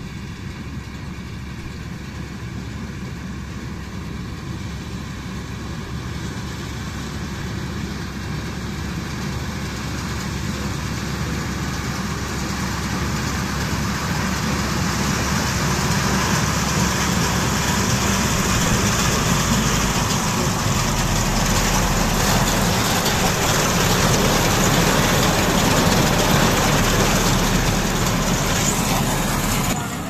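Self-propelled corn harvester running as it cuts standing maize. Its engine and harvesting machinery make a steady din that grows steadily louder as the machine comes closer.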